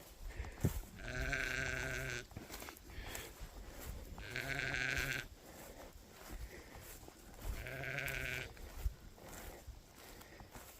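A sheep bleating three times, each call about a second long with a low, wavering pitch, with a few faint knocks between the calls.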